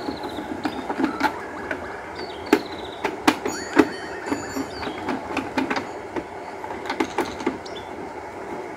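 Screwdriver turning screws out of a Kitchen Cook LJ-70001 juicer's plastic base, with irregular clicks and knocks as the plastic housing is handled and the screws come loose.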